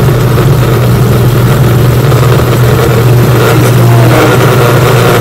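Countertop blender running steadily, its motor labouring through a thick batch of peppers, onions, cilantro and garlic for sofrito. The owner says the motor is burning out.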